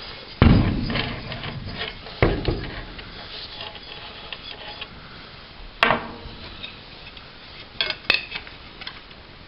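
Handling noise as a 4.5-inch abrasive cutoff disc is picked up and set down: a loud knock about half a second in and another about two seconds in, sharp clicks near the six- and eight-second marks, and faint rubbing between them.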